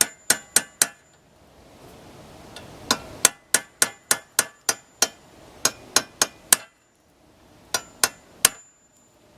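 Hammer striking a steel punch in quick runs of sharp metallic blows, about three or four a second, each with a brief ring, driving out the ground-off rivet that holds the handle in a shovel's socket.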